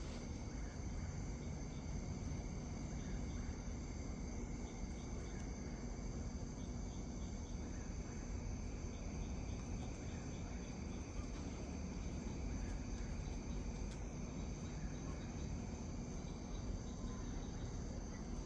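Night insects, crickets among them, trilling steadily in several constant high-pitched tones, with fainter rapid chirps, over a low steady rumble.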